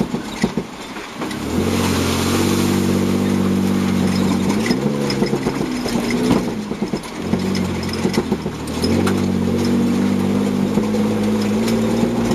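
Toyota Land Cruiser Prado 150 rally car's engine heard from inside the cabin, driving hard along a muddy track. The engine note comes in strongly about a second and a half in, rises and falls as the driver accelerates and lifts, drops away briefly about six seconds in, then picks up again, with knocks and rattles from the body over the rough ground at the start.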